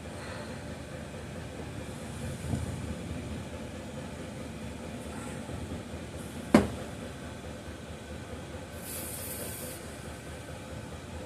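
Tools and parts being handled while working on a chainsaw, over a steady background hum: a dull knock about two and a half seconds in, a sharp click about six and a half seconds in, and a brief high hiss of about a second near the end.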